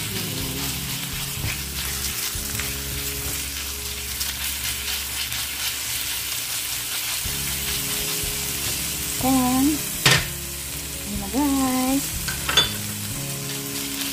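Minced garlic and ginger sizzling in oil in a frying pan, stirred with a silicone spatula. Two sharp taps come in the second half.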